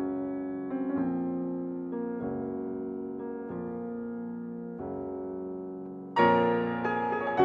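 Slow piano music: sustained chords struck every second or so, each left to ring and fade, with a louder, brighter chord about six seconds in.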